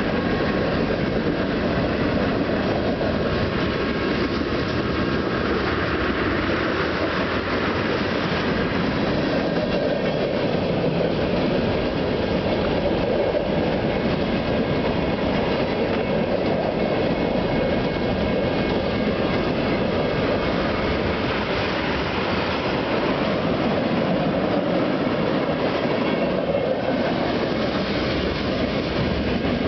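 Freight cars of a long freight train rolling past close by: a steady rumble of steel wheels on rail that runs on without a break.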